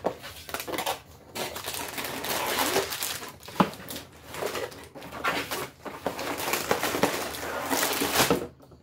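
Cardboard LEGO set box being opened at one end and its sealed plastic bags of bricks pulled out, the bags crinkling and rustling with bricks clicking inside. There is a sharp click about three and a half seconds in.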